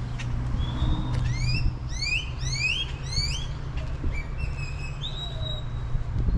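Electronic car alarm siren cycling through its tones: a run of about five quick rising whoops, then steady held notes stepping between pitches. Under it runs a steady low rumble.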